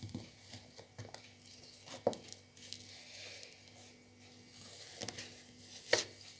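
Quiet kitchen handling sounds while bread and butter is being made: scattered soft taps and clicks, with two sharper knocks about two seconds in and near the end.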